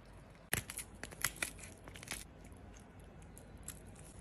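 Lobster shell cracking and crunching as it is broken apart: a quick cluster of sharp cracks from about half a second to two seconds in, then fainter small clicks.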